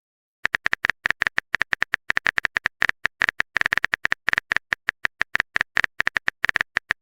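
Phone-keyboard typing sound effect: a quick, irregular run of short clicks, about nine a second, starting about half a second in.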